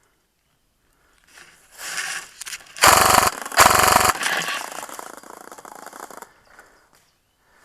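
G&P M249 MKII airsoft electric gun firing two short full-auto bursts, each about half a second long, made of rapid, evenly spaced clicks from the gearbox cycling.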